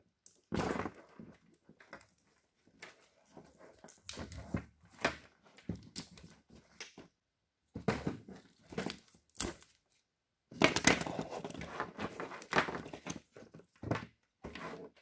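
An old Toyota MR2 (AW11) wiring harness being pulled about and cut apart on a workbench: irregular rustling and clunking of wire bundles and plastic connectors against the table, with sharp clicks as wires are snipped.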